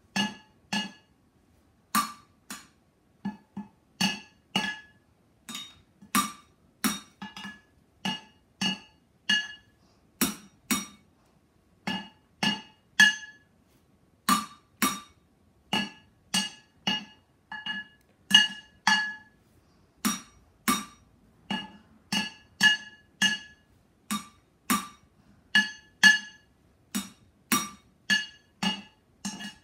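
Two upturned cooking pots played as drums with wooden drumsticks in a steady beat of about two hits a second, some hits in quick pairs. Each stroke is a sharp hit with a short metallic ring, and the two pots ring at different pitches.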